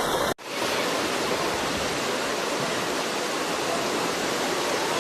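Steady rushing noise of water in a heavy rainstorm. It is broken by a brief drop-out about half a second in.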